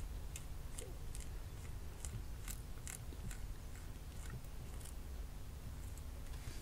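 Plastic spatula scraping through epoxy resin over a shattered phone screen, with faint, irregular little crunches where it catches on protruding bits of broken glass.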